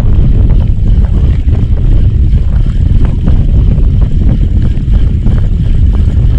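Wind buffeting the microphone on an open boat at sea, a loud steady low rumble, with a few faint irregular ticks over it.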